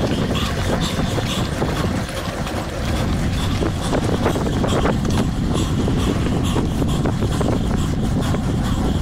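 Wind rushing over a bike-mounted action camera's microphone with tyre rumble on asphalt, riding a road bike at about 20 km/h, with scattered light knocks.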